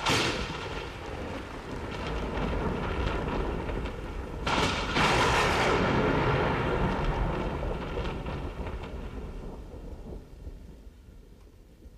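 Thunder sound effect: a sudden crash at the start, a second rolling peak about four and a half seconds in, then a long rumble fading away toward the end.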